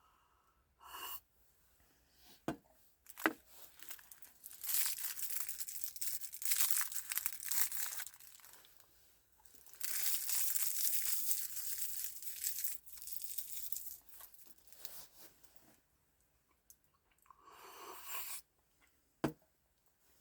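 Rustling, tearing and crinkling of material being handled, in two long stretches with a shorter one near the end, and a few sharp knocks in between.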